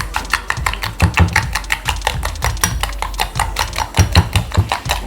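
Spoon beating egg and sugar in a bowl: quick, even clicks of the spoon against the bowl, about seven a second, over background music.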